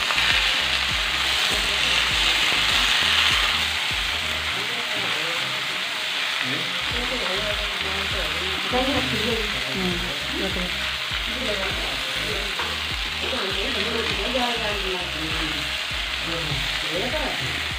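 Boiled potatoes and peas sizzling as they fry in hot oil in a steel kadhai, the sizzle loudest in the first few seconds and then steady.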